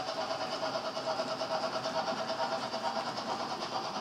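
HO-scale model tank wagons rolling along the track behind a model steam locomotive: a steady whirring and rattling of small wheels on rail, with a steady hum over it and a fast flutter.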